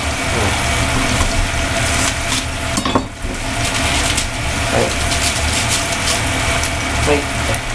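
Cabbage and sakura shrimp frying in a pan with a steady sizzle, with a few short crunches of raw cabbage leaves being broken apart by hand.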